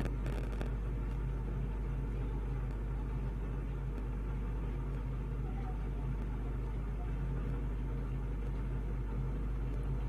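Steady low hum of background noise, even throughout, with no distinct strokes or events.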